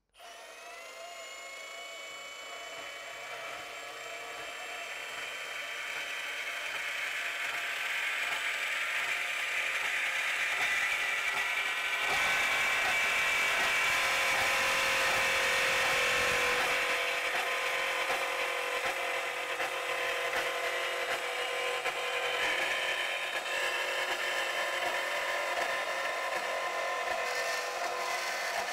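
Milwaukee M18 CBS125 cordless deep-cut band saw spinning up and cutting through steel cable trunking. A steady motor whine carries the rasp of the blade in the metal, growing louder as the cut deepens and loudest about halfway through.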